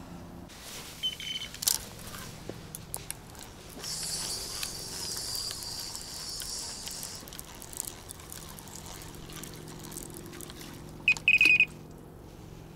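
Faint handling clicks and rustling at night, with a steady high hiss for a few seconds in the middle. A short burst of high-pitched beeping near the end is the loudest sound.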